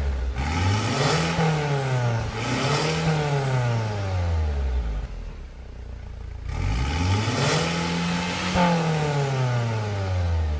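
Mercedes-Benz W204 C250's engine through a Fi Exhaust system with Y-pipes and a valvetronic muffler, revved up and let fall back three times, the third rev climbing more slowly and held longer.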